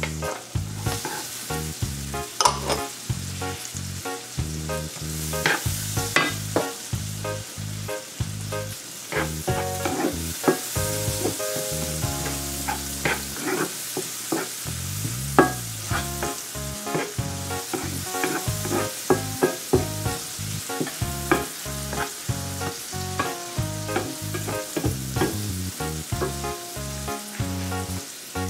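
Chopped onion and minced garlic sizzling in canola oil and butter in a nonstick frying pan, with a steady hiss. A wooden spatula stirs them, and now and then it taps and scrapes against the pan.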